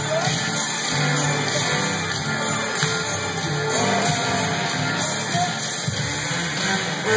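Music with a steady beat, played over a roller rink's loudspeakers.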